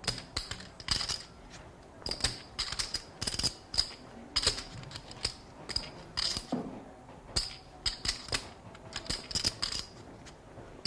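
Poker chips clicking against each other as they are handled and riffled at the table. The clicks come in short irregular clusters, one or two a second.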